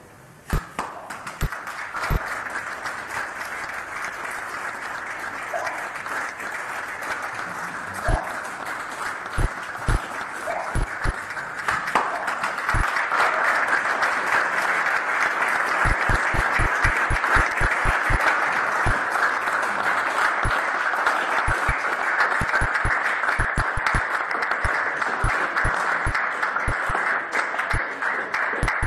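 Audience applauding, lighter at first and swelling about twelve seconds in, then stopping near the end. Sharp digital clicks run through it.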